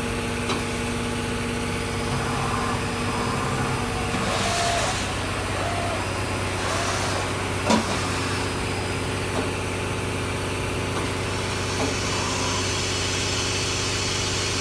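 Fadal 4020 vertical machining center running: a steady mechanical hum whose tones shift about four seconds in, with a few short clicks, the loudest about eight seconds in.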